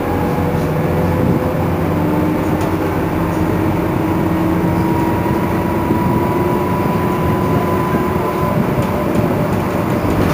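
Iveco Crealis city bus driving, a steady rumble of motor and road noise with a thin whine that climbs slowly in pitch as the bus gathers speed.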